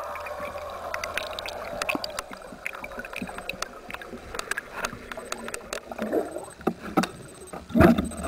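Underwater sound picked up by a camera on a speargun: a watery background with scattered sharp clicks and bubbling, and a louder gurgling burst of bubbles near the end.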